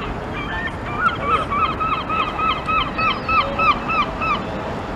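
A gull giving its long call: a run of about a dozen repeated yelping notes, about four a second, starting about a second in and stopping near the end.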